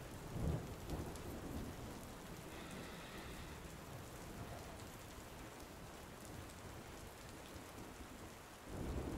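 Steady rain falling, an even hiss, with a low rumble swelling shortly after the start and again near the end.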